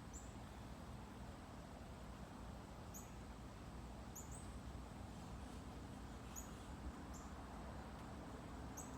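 A few faint, very short, high-pitched bird chirps, spaced irregularly a second or more apart, over a low steady background hum.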